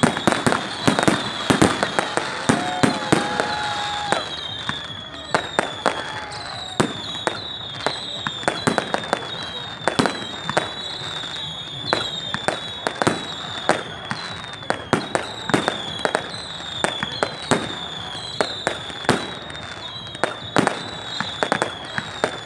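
Fireworks display: a rapid, continuous string of sharp bangs, several a second, over a crackling haze, with high thin whistles that fall in pitch again and again.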